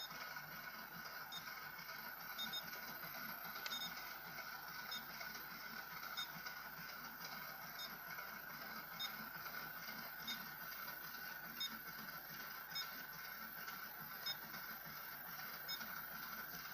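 Continuous inkjet marking printer running: a faint steady whine with soft, regular clicks a little over once a second.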